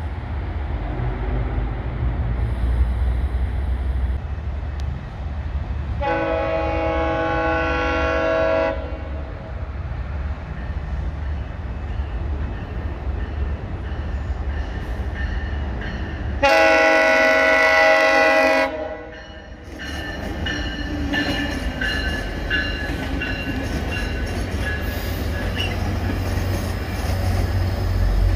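Trains at a station: the low rumble of diesel locomotives runs throughout, and a train's air horn sounds two long several-note blasts, about six and sixteen seconds in, each lasting roughly two to three seconds. From about twenty seconds in, wheels squeal thinly as a commuter train rolls past.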